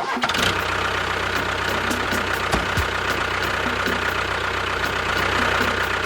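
An engine running steadily at idle, starting abruptly and holding an even level, with a faint regular ticking.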